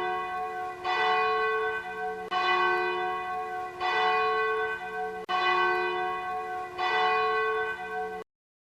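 Church bell tolling, about five strikes roughly a second and a half apart, each ringing on into the next; the ringing cuts off suddenly near the end.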